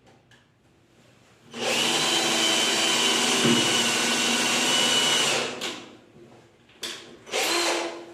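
Power drill pre-drilling a pilot hole for a door closer's mounting screws: the drill runs steadily with a high motor whine for about four seconds, winds down, then gives two short bursts near the end.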